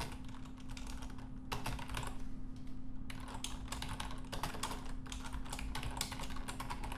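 Computer keyboard typing: a fast, irregular run of keystrokes with a short pause about two seconds in.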